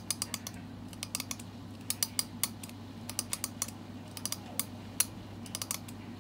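Teeth of a plastic comb flicked with a fingernail, giving sharp, irregular clicks, several a second and often in quick runs, over a low steady hum.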